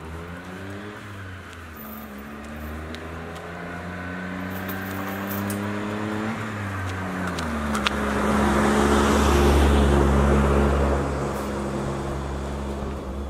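A van's engine and tyres on the road, growing louder as it approaches, loudest about nine to ten seconds in, then fading as it passes.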